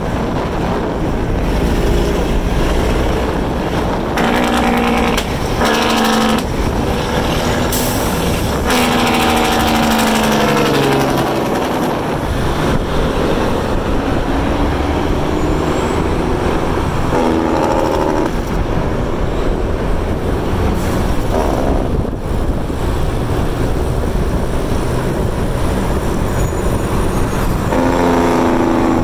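Cabover semi truck's diesel engine through tall straight exhaust stacks, its Jake brake (engine brake) barking out in several bursts over a steady rumble. The longest burst, about ten seconds in, falls in pitch as the engine slows.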